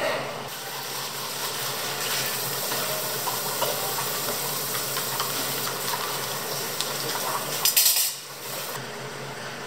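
Chocolate liquid poured in a thin stream into a plastic cup of iced milk, a steady hiss of filling. It ends with a brief louder splash about eight seconds in, as the pour stops.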